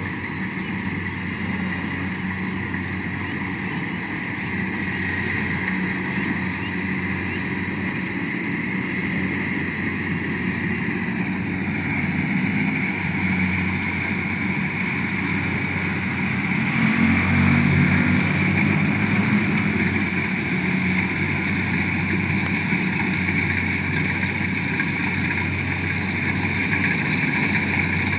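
Engine of a heavy rice-harvesting machine running steadily with a constant mechanical whirr, growing a little louder about two-thirds of the way through.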